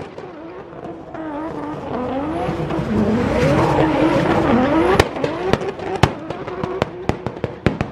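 Drift car on the track at high revs, engine pitch repeatedly rising and falling under the throttle with tyre squeal, swelling to its loudest about three to five seconds in and then fading. Sharp cracking pops come throughout.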